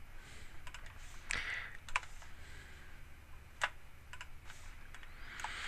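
Typing on a computer keyboard: a handful of separate, irregularly spaced key clicks.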